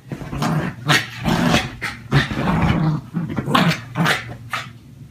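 American Eskimo dog growling in a run of short, rough growls about every half second, worked up in a frenzy; the growls stop about a second before the end.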